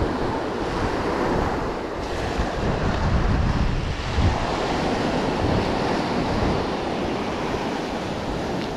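Gulf surf breaking and washing on the beach, a steady rush, with wind buffeting the microphone.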